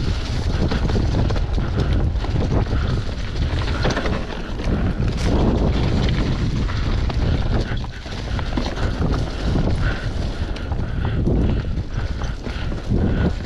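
Wind buffeting a GoPro's microphone, mixed with the rattle of a downhill mountain bike riding fast over a rough dirt trail, with many short knocks from bumps along the way.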